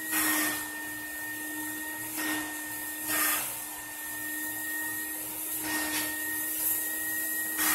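Roboclean vacuum cleaner running with a steady whine while its shampoo upholstery nozzle is drawn over a fabric chair back. Each pass over the fabric makes a brief rushing swish, about four in all.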